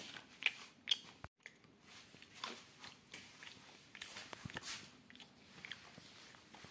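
Faint, irregular crunching and chewing of food close to the microphone, heard as scattered short clicks.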